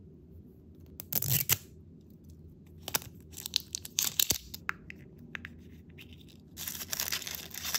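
Printed plastic wrapper being torn and peeled off a small L.O.L. Surprise blind ball, crinkling in bursts about a second in and again near the end. In between come sharp clicks and taps as fingers handle the hard red plastic ball.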